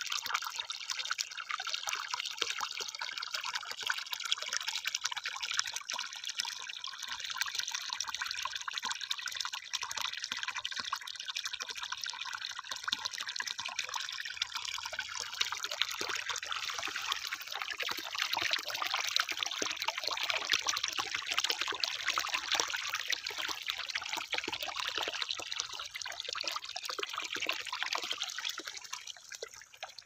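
Water pouring from a plastic hose into a muddy irrigation furrow, a steady splashing trickle into standing water, a little quieter near the end.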